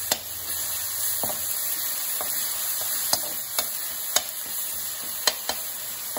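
Onion frying in hot oil in a steel kadhai, sizzling steadily, while a perforated metal spatula stirs it, clicking and scraping against the pan about ten times.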